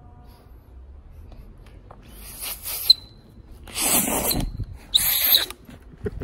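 Emergency whistle on a Gerber Bear Grylls Ultimate survival knife blown three times: a short, weaker blast, then two louder ones of about a second or less. The blasts are breathy, with a thin high tone through them. It is being blown as a signal to find a companion who has got separated.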